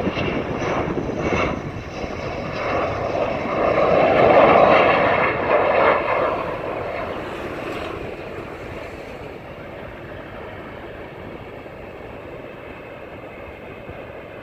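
F-15 fighter's twin jet engines as it passes low on landing approach: a loud jet roar with a thin whine in it. It swells to a peak about four to six seconds in, then dies down to a steady, quieter noise.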